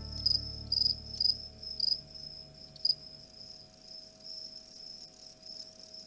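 Male Mediterranean field crickets giving aggressive stridulation: four loud, short, high chirps about half a second apart in the first two seconds and a weaker one near three seconds, over a steady high trill. It is a warning between rival males.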